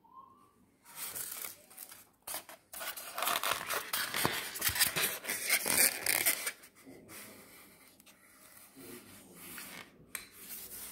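Rustling and scraping handling noise, loudest through the middle few seconds, with a few sharp clicks near the end.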